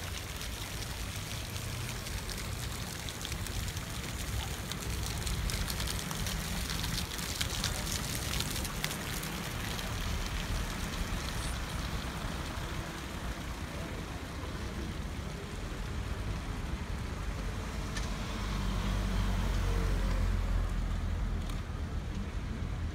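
Outdoor town-centre ambience: a steady rushing hiss with passing traffic, and a low rumble that swells near the end.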